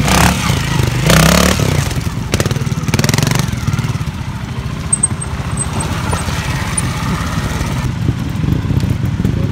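Trials motorcycle engine running, blipped sharply three or four times in the first few seconds, then ticking over at low revs.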